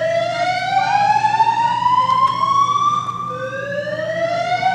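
Building fire alarm sounding with a loud rising whoop: a tone that slides upward over about three and a half seconds, drops back low and starts climbing again about three seconds in. The school's alarm system keeps going off during testing, which someone blames on a problem in the system.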